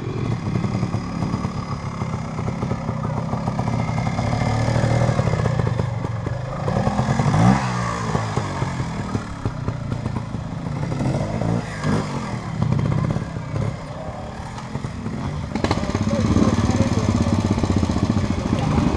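Vintage trials motorcycle engines running at low revs, with the throttle blipped as the bikes climb over rocks. Two sharp revs rise and fall, about seven and a half and twelve seconds in.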